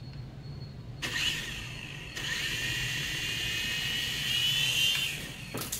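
Micro RC toy helicopter's tiny electric motors whining as its rotors spin up, the high whine starting about a second in and stepping louder a second later. It rises a little in pitch near the end, then cuts off.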